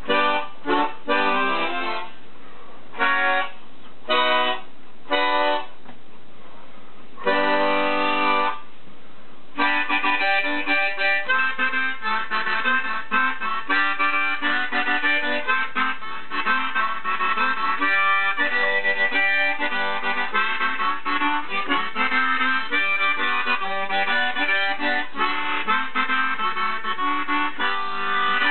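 Hohner chord harmonica played: a few short separate chords, then one held chord about seven seconds in, then from about ten seconds in a steady stream of rhythmic chords carrying a tune.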